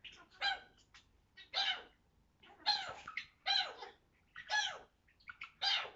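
African grey parrot giving a series of short squeaky calls, about one a second, in imitation of a chinchilla.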